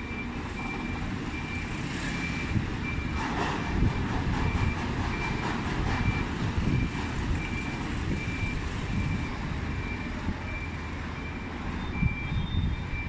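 Train rumbling low as it moves through the station, with a short high electronic beep repeating evenly about every three-quarters of a second.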